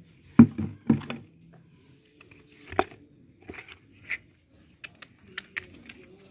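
Knocks and scraping of hard plastic as pieces of a plastic bucket, just cut apart with a utility knife, are handled and set down. The loudest knocks come in the first second, with a few short sharp clicks near the end.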